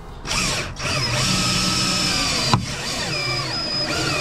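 DeWalt cordless drill driving a suction-mounted cord winder, reeling the cutting cord through the urethane bead that holds the quarter glass. It starts about a third of a second in and runs on as a motor whine whose pitch dips and recovers a couple of times, with one sharp click about two and a half seconds in.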